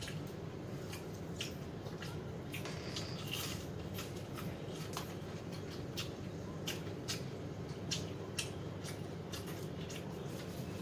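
Close-up chewing and crunching of crispy fried chicken: irregular sharp crunches, a few a second, over a steady low hum.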